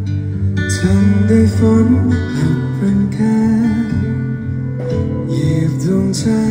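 Live pop song: a male singer's voice over guitar-led band accompaniment, recorded by a phone in the audience.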